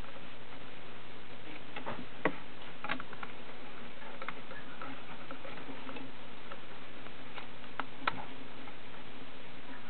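Pancake tortoises clambering over each other on a flat stone: scattered sharp light clicks and knocks of shell and claws, loudest a little after two seconds and again about eight seconds in, over a steady hiss with a faint hum.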